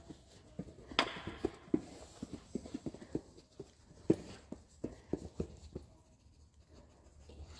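Irregular light knocks of footsteps on rubber foam floor mats, from a small dog and its handler walking slowly, with a couple of sharper knocks about one and four seconds in.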